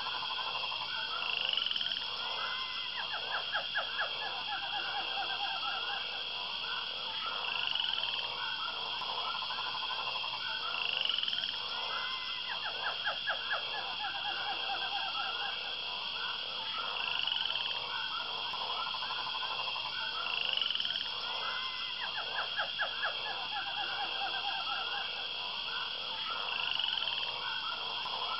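Looping electronic or ambient music with a phrase that repeats about every three seconds: rapid, croak-like pulse trains under a short rising high tone.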